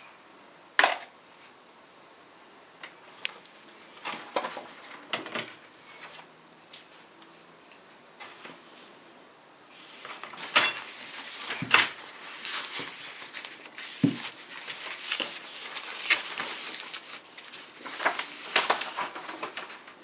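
Brake pads with steel backing plates clicking and knocking against each other and against the table as they are handled and set down. Tissue wrapping paper rustles through the second half.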